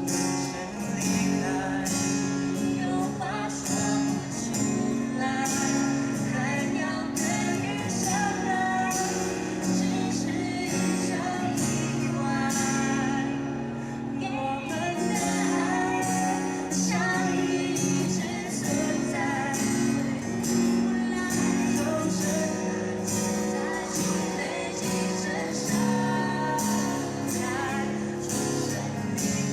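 A pop song playing: a voice sings over a backing accompaniment with a steady beat.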